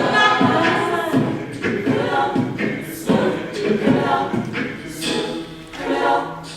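An a cappella vocal group singing in harmony, voices only with no instruments.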